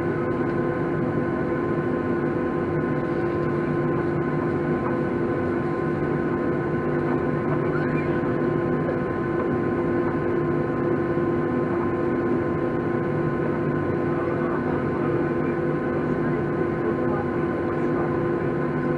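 Steady hum inside an airliner cabin as it taxis after landing: engines at idle and cabin air, with several steady tones over an even rush.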